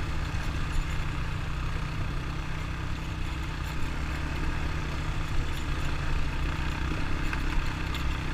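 ATV engine running steadily, a low, even drone.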